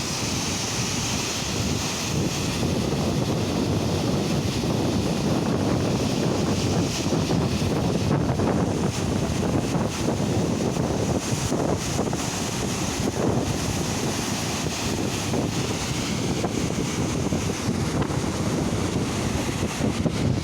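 Flood water rushing steadily through an open dam gate, with wind buffeting the microphone.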